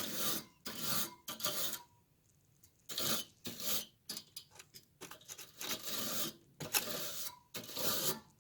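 Repeated scrubbing strokes against the dusty aluminium fins of a window air conditioner's evaporator coil, clearing out dust and dirt. The strokes come about two a second, with a short pause about two seconds in.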